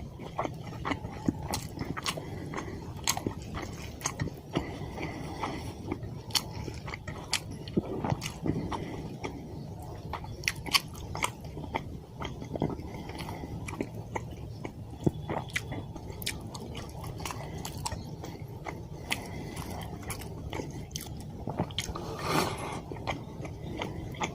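A person chewing and eating fish curry with white rice, close to the microphone: wet mouth sounds with irregular sharp clicks, and a slightly longer, louder burst near the end.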